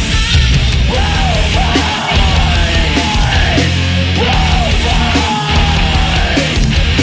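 Loud rock music played live by a band, heavy and punk-like in style, with a steady bass line under it.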